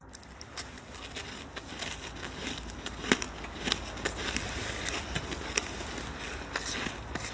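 Shaved ice crackling and crunching: a dense run of small crisp cracks, with a few louder sharp cracks about three seconds in.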